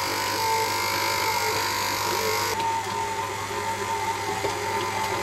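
KitchenAid stand mixer running steadily with its dough hook kneading bread-type dough: an even motor whine over a low hum.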